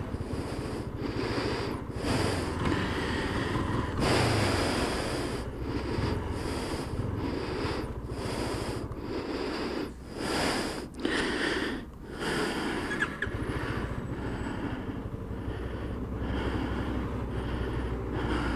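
Yamaha Fazer motorcycle engine running low and steady, heard from a helmet camera, with the rider's breathing puffing on the microphone about once a second.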